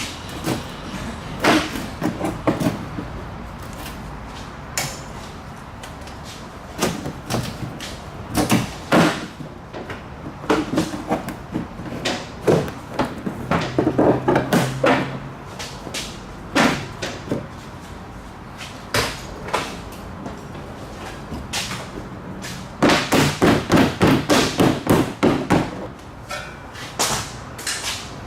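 Tools working on metal: irregular knocks and clanks, with a quick run of about a dozen strikes near the end.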